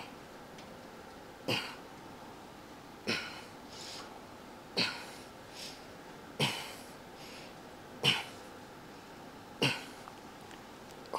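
A man breathing out sharply and forcefully with each repetition of a cable biceps curl, one short exhale about every second and a half.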